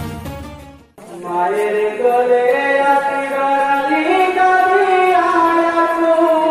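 Intro music fading out over the first second, then a jari (Bengali Muharram lament) chant begins: a singer holds long, drawn-out notes that slide slowly up and down.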